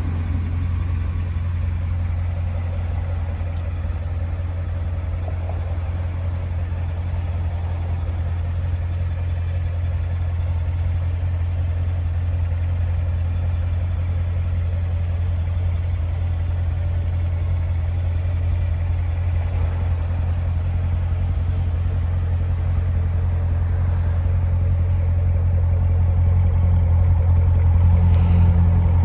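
2015 Chevrolet Corvette Stingray's 6.2-litre LT1 V8 idling steadily, a low even rumble that grows a little louder near the end at the quad exhaust tips.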